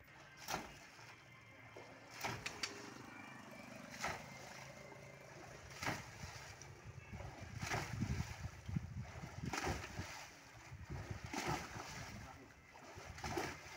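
Water splashing and sloshing in repeated strokes, about one every two seconds, as a wooden mooring post is worked up and down in shallow water to sink it into the bottom.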